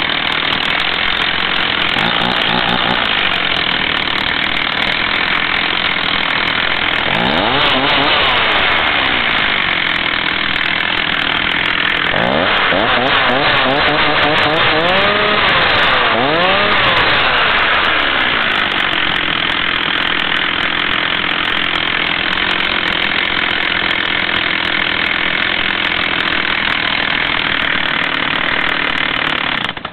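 Stihl MS 240 two-stroke chainsaw running at idle, revved once about a quarter of the way in and then blipped several times in quick succession around the middle before settling back to idle. The engine cuts off at the very end.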